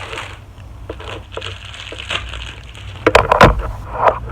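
Packaging around a small Bluetooth remote being opened by hand, rustling and crinkling, with a few sharp loud clicks and snaps about three seconds in.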